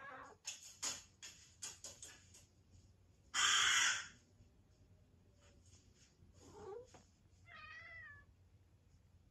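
Domestic cat meowing and giving a short wavering, trilling chirp while it watches a crow video. Harsh crow caws come from the television's speaker in the first half, the loudest about a third of the way in.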